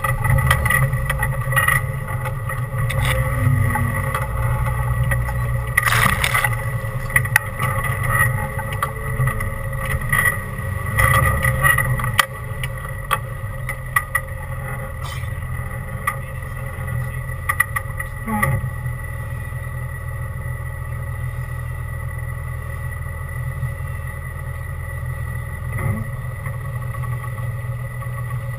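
Off-road 4x4's engine running steadily as the rig crawls over rough trail ground, with frequent knocks and rattles from the body and chassis over the first twelve seconds or so. After that it settles to a quieter, steady run with only an occasional knock.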